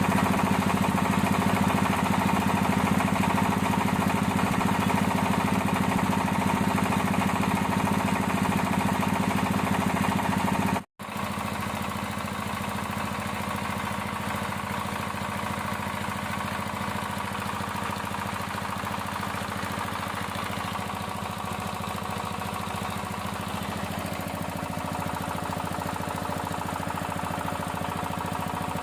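Diesel engine of an odong-odong, unused for two years, running steadily. About eleven seconds in the sound cuts out for an instant and comes back quieter.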